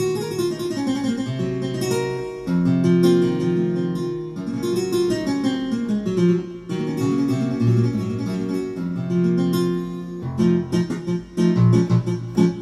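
Korg Krome keyboard playing a sampled guitar patch: a continuous stream of plucked guitar notes.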